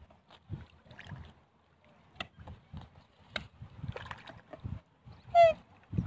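A crowd of black swans and Eurasian coots at the water's edge: scattered sharp clicks and low water and handling noise, and one loud, short high call about five seconds in.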